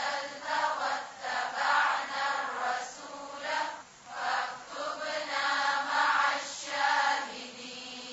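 Voices reciting an Arabic supplication aloud together in a chanting cadence, in short sung phrases with brief pauses between them.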